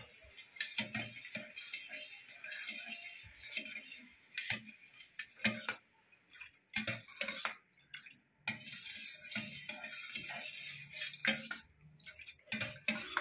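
Steel ladle beating and stirring starter curd into warm milk in a stainless steel bowl, clinking and scraping against the bowl's sides in irregular strokes, to set yogurt.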